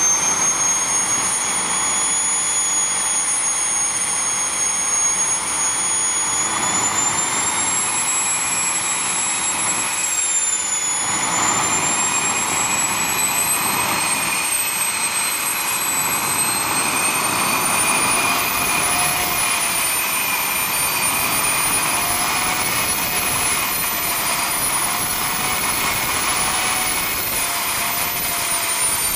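Small homemade model turbojet engine running on a test stand: a steady jet rush with a high turbine whine. The whine sags briefly about ten seconds in, then climbs gradually higher as the engine speeds up.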